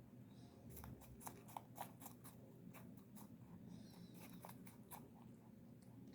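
Pet rabbit chewing food, a quick run of faint, crisp crunches and clicks that stops about five seconds in.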